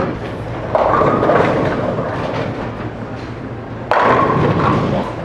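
Bowling alley clatter: a bowling ball hits the pins and they crash and scatter, starting suddenly about four seconds in, over the steady din of the alley.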